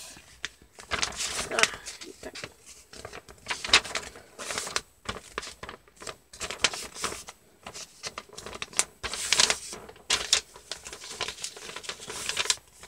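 A sheet of paper rustling and crinkling in the hands as it is folded in half and creased, in short irregular bursts.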